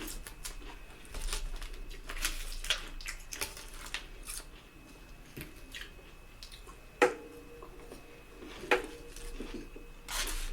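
Close-up eating sounds: chewing and wet mouth clicks, with two sharp clinks of cutlery against a dish, one about seven seconds in and one near nine, each ringing briefly.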